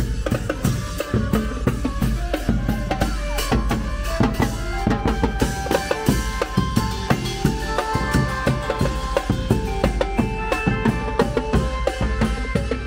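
Thai marching brass band (trae wong) playing: bass drums, snare drums and hand cymbals keep a quick, even beat under a saxophone and trumpet melody that stands out more from about four seconds in.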